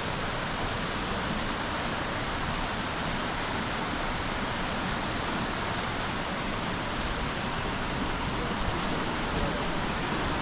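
Waterfall rushing close by: a steady, unbroken roar of falling water.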